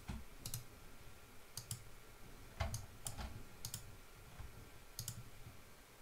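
Computer mouse and keyboard clicking: about a dozen faint, sharp clicks, many in quick pairs, with soft low thumps under some of them.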